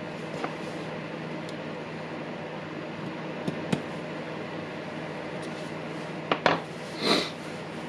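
Small clicks and a short scrape from parts being handled during reassembly of a cordless impact driver, with two sharp clicks a little after six seconds and a brief rustling scrape just after, over a steady workshop hum.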